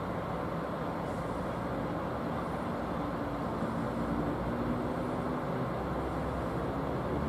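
DD51 diesel-hydraulic locomotive's engines running as it creeps along during shunting, a steady engine drone whose note grows a little clearer and louder over the second half.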